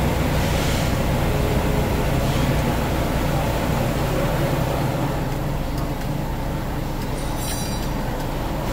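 Steady low mechanical rumble and hum, with a brief high clicking about seven and a half seconds in.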